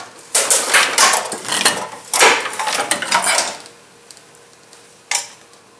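Metal scraping and clanking as the Dodge 4.7 L V8's cylinder head, exhaust manifold still bolted on, is worked loose and lifted out of the engine bay, for about three and a half seconds; a single sharp knock about five seconds in.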